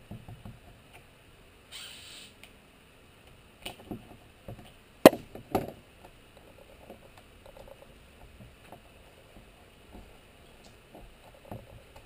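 Utility knife cutting through foil-faced window flashing tape and the cut pieces being peeled off, heard as scattered light clicks, rustles and a short scraping hiss about two seconds in. Two sharper knocks about five seconds in.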